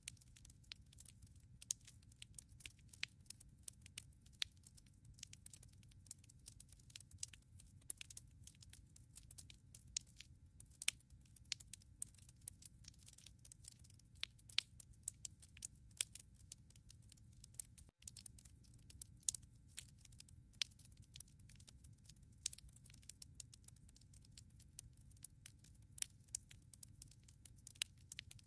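Firewood crackling in a fireplace: irregular sharp pops and snaps, several a second, over a faint low steady rumble. The sound cuts out for an instant about eighteen seconds in.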